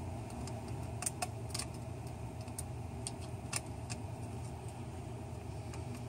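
A small Phillips screwdriver working the screws in a laptop's screen hinge and frame, with a scattering of light metallic clicks over the first four seconds, over a steady low hum.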